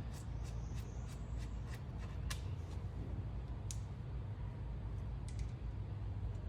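Hydraulic oil draining out of a Ford 3000 tractor into a catch pan, a steady trickling rustle, with a few light clicks and a low steady hum underneath.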